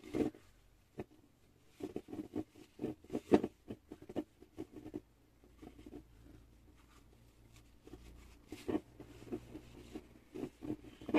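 Hands handling a jar and working a knitted wool cap down over its lid: scattered light knocks and rustles, with a quieter stretch in the middle.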